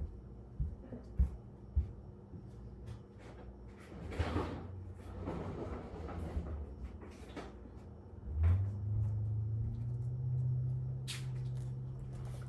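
Scattered knocks and clatter of objects being handled, with a stretch of rustling in the middle, then a steady low hum that starts abruptly about eight seconds in and keeps going.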